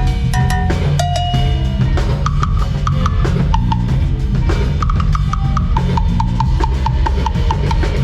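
Live band playing: a drum kit with bass drum and snare hits over a steady bass line, with a high note repeated quickly through the second half.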